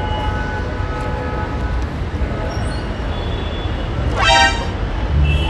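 City road traffic running with a steady low rumble, and a vehicle horn tooting once, briefly, about four seconds in.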